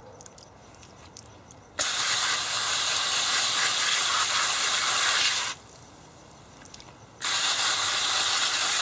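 Garden hose spray nozzle spraying water onto a zucchini plant: a steady hiss that starts about two seconds in, runs for some three and a half seconds, stops, and starts again near the end.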